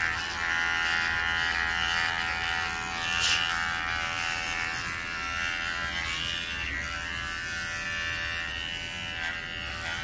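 Electric dog-grooming clippers running with a steady buzz as they shave the hair on a dog's face and muzzle, with one brief click about three seconds in.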